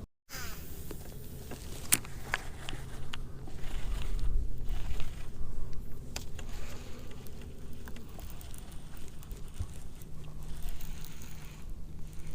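Wind buffeting the microphone, a low rumble that swells about four seconds in, with scattered sharp clicks of handling and a faint low hum.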